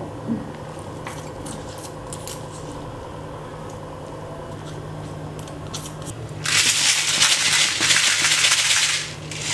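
Crushed ginger, garlic and shallots being scraped out of a stone mortar into a glass bowl: faint scattered clicks and scrapes, then a louder rasping noise for about two and a half seconds near the end.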